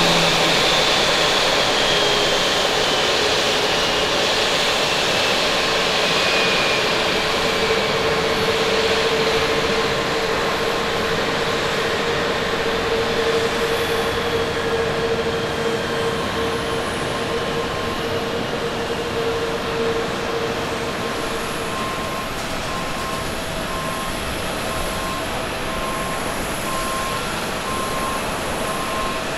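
Jet engines of a taxiing Boeing 777 airliner: a steady rush with whining tones, the higher tones falling in pitch over the first several seconds and the whole slowly easing off. A faint regular beeping comes in about two-thirds of the way through.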